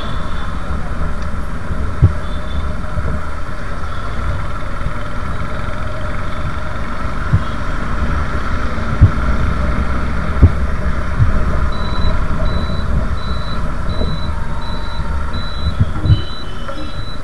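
Steady wind and road rumble with engine hum from riding a two-wheeler through city traffic, broken by a few sharp knocks. From about two-thirds of the way in, a high electronic beep repeats about twice a second, like a vehicle's turn-signal or reversing beeper.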